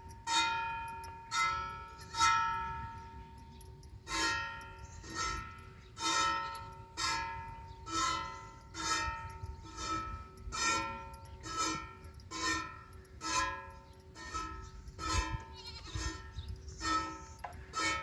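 Background music: a slow melody of plucked, bell-like notes, each note ringing and fading before the next.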